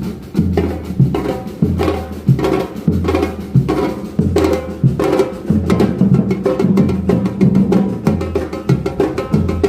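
Music with a steady beat: a low bass note repeating about once a second under sharp, frequent percussive hits.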